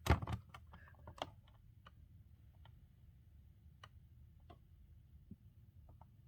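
Faint, irregular clicks and ticks over quiet room tone, with a sharper click right at the start and a few more in the first second or so, then only sparse light ticks.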